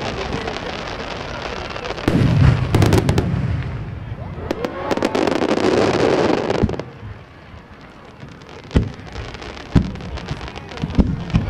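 Aerial firework shells: a heavy boom about two seconds in, then a dense crackling of many small stars bursting, then single sharp bangs of further shells near the end.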